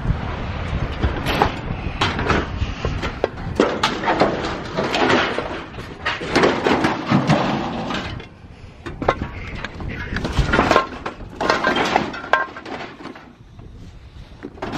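Irregular crunching and clattering of footsteps moving over loose scrap metal and debris, easing off for a moment about halfway through and again near the end.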